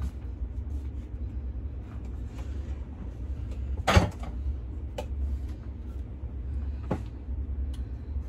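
Kitchen cupboard doors and kitchenware being handled while someone rummages for a bowl: scattered clicks and knocks, the loudest about four seconds in, with two more near five and seven seconds. A steady low hum runs underneath.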